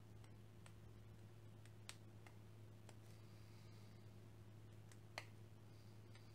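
Near silence with a low steady hum, broken by a few faint small clicks of fingers handling small screws and nylon spacers, the clearest two about two and five seconds in.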